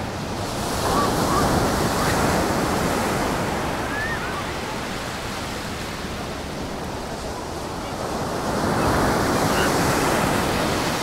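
Storm surf on a sandy beach: waves breaking and washing up the shore, swelling loudest about a second in and again near the end.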